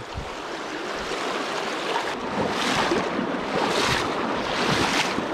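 Flowing river water rushing over rocks, a steady hiss; from about two seconds in it turns gustier, with wind buffeting the microphone.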